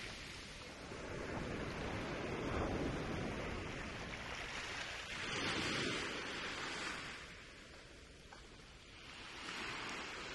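Ocean surf breaking and washing up a sandy beach, swelling and receding in three waves about three to four seconds apart.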